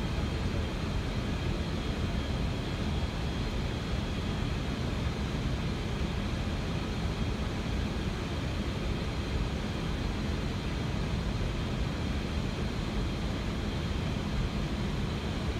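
Steady rushing noise on the flight deck of an Airbus A320 in flight during descent, deepest in the low range, with a faint high steady tone above it.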